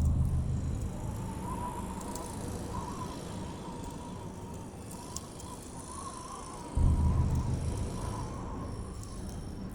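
Strong wind in a heavy snowstorm. Two sudden gusts, one at the start and one about seven seconds in, each hit the microphone as a low rumble that fades over a couple of seconds. Underneath is a steady rush with a faint wavering whistle.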